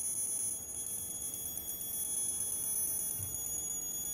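A 12 V to 220 V 500 W power inverter, just powered up, gives a steady high-pitched tone with higher overtones. The inverter is faulty: it switches on but gives no AC output, with its input voltage sagging and fluctuating from a shorted output power MOSFET.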